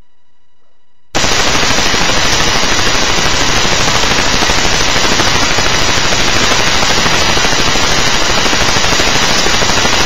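Loud, harsh digital static that starts suddenly about a second in, with a fast fine flutter, and covers everything else. It is a recording glitch in the webcam audio that drowns out the speaker's voice.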